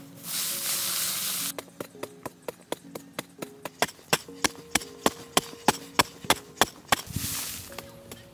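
Loose dry soil scraped and shovelled by hand, two rushing scrapes about a second long, one near the start and one near the end. Behind them runs light background music with a quick ticking beat.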